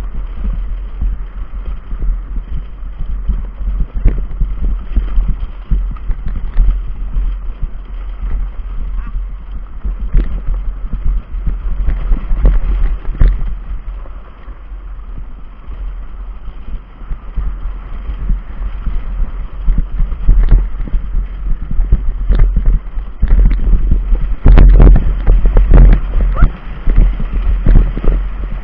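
Billy cart coasting fast down a gravel track: wind buffeting the onboard microphone with a steady low rumble, over the constant rattle and knocking of the cart's hard tyres and frame on the stones, heaviest near the end.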